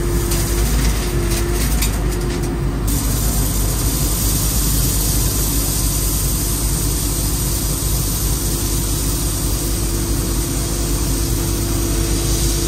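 Excavator's diesel engine running steadily, heard from inside the cab, while the bucket works crushed stone. Light rattling over the first three seconds or so.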